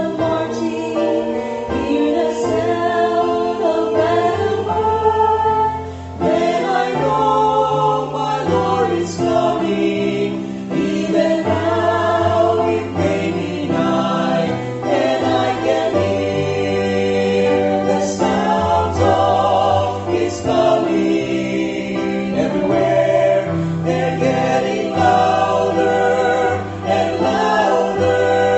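A vocal quartet singing a gospel song in harmony, with several voices holding sustained chords over low bass notes.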